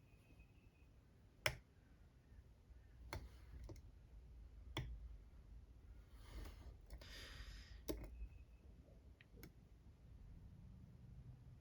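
Lock pick working the barrel spool pins of an Assa 600 lock: a few faint, scattered clicks, the loudest about a second and a half in, with a short scrape of the pick around the middle. In this lock such clicks can come from pins popping out of the counter milling or from the pick slipping.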